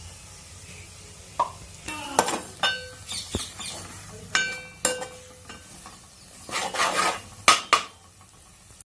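A metal spoon stirring in a metal cooking pot. It gives several ringing clinks as it strikes the pot, notably about two seconds in and around the middle, and scrapes several times near the end.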